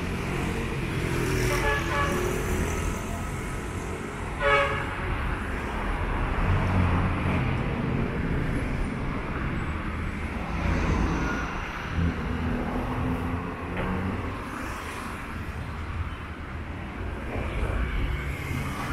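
Busy city street traffic: a steady rumble of car engines and tyres, with a short vehicle horn toot about four and a half seconds in.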